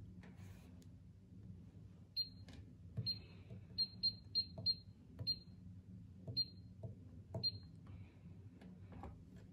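Washing machine control panel beeping as its buttons are pressed, about nine short high beeps, four of them in quick succession about four seconds in, each with a light click, over a low steady hum.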